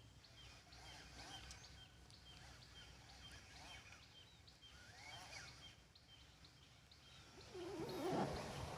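Birds calling in the open: a short high note repeated steadily two or three times a second, with a few sweeping calls over it. Near the end a much louder, lower sound comes in.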